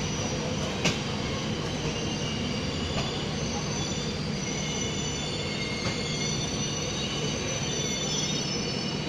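Train rolling slowly, heard from on board: a steady rumble of the wheels on the track with high squealing tones from the wheels on the rails. A sharp click comes a little under a second in.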